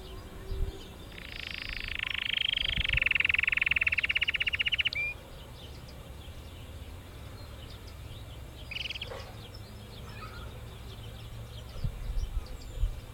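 Domestic canary singing: one long phrase of about four seconds that runs into a fast trill of rapidly repeated notes, then a short burst of song a few seconds later. Low thumps are heard near the end.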